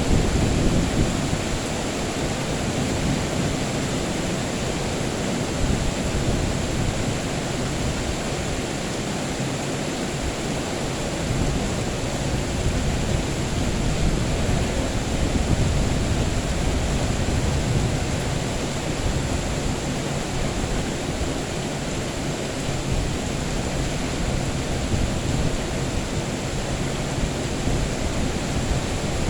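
Steady rain falling as an even hiss, with low rolls of thunder swelling near the start and again around the middle.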